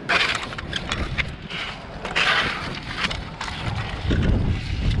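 Scuffs, scrapes and knocks of fishing gear being handled on a concrete surface, over a low rumble of wind on the microphone.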